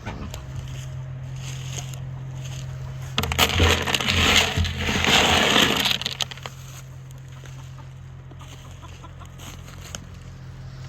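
Rustling and crunching for about three seconds, starting a few seconds in, as more chicken feed is scooped up by hand.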